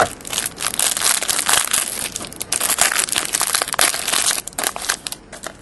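Plastic wrapper crinkling and crackling as a pack of football cards is handled and unwrapped by hand. The crackling is dense and irregular and eases off near the end.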